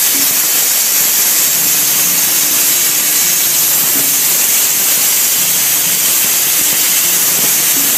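CNC plasma cutter's torch cutting steel plate: a loud, steady hiss of the plasma arc and its air jet.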